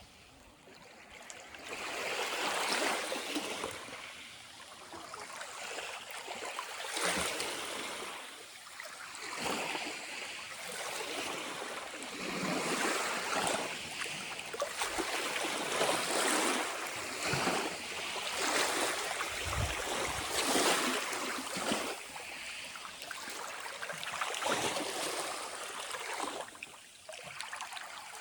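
Calm Tyrrhenian Sea waves lapping and washing against the shore, swelling and falling in irregular surges every second or two.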